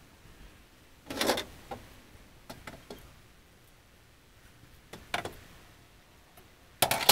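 Short wooden knocks and clatters as a spirit level is set down on and moved across wooden framing lumber. There are a handful of them, with louder ones about a second in, around five seconds, and a sharp one near the end.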